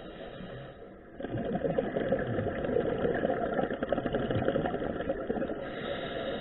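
Scuba divers breathing underwater through their regulators: a quieter breath in near a second in, then a long exhalation of bubbles with a dense, rapid, burbling rattle.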